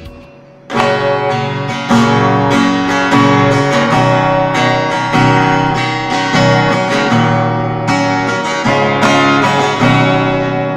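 Yamaha APX600 acoustic guitar played: after a short quiet moment, chords are strummed and picked one after another, each left ringing.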